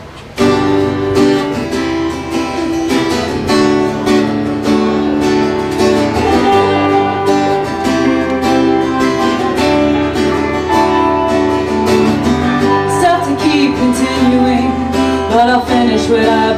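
Two guitars, an acoustic-electric and an electric, strumming chords together in a live song's instrumental intro, starting abruptly about half a second in.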